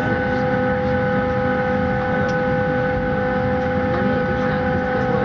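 Steady whine of a Ryanair Boeing 737's running machinery heard from inside the cabin: a few level tones over a low rumble, holding unchanged.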